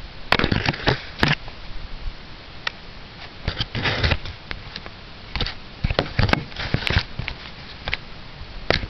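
Scattered rustles and sharp clicks from handling and movement close to the microphone, coming irregularly; no engine cranking is heard.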